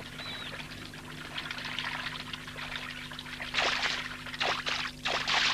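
Water sound effect in an animated film: soft trickling water while a duckling paddles, then several quick splashes near the end.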